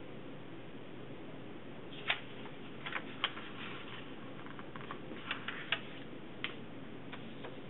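A sheet of paper being folded corner-over into a triangle and creased by hand: a scattering of short sharp paper crackles and taps, starting about two seconds in, over a steady low hiss.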